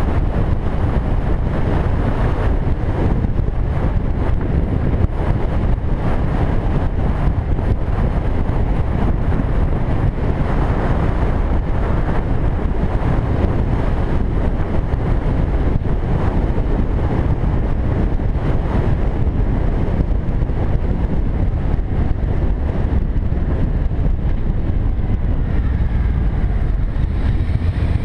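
Steady wind rush on the microphone of a camera riding on a moving cruiser motorcycle, with the motorcycle's engine running beneath it.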